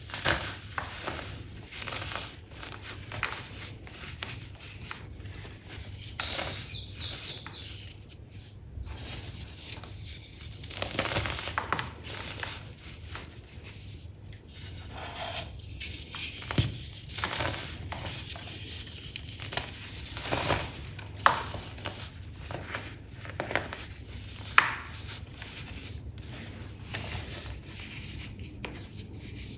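Compacted baking soda being crushed: an irregular run of crisp crunches and crackles, with two sharper, louder cracks in the last third.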